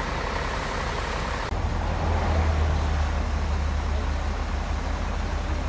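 Water from a fire hose and steam hissing on a burned-out lorry cab as it is doused. After a sudden change about a second and a half in, a strong steady low rumble takes over with fainter hiss above it.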